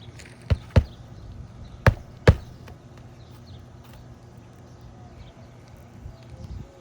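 Four sharp hammer blows, in two pairs about a second apart, driving a roofing nail into an asphalt shingle.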